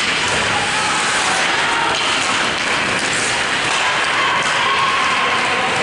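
Ice hockey game noise in an indoor rink: a steady wash of skates on ice and spectators, with occasional stick and puck taps.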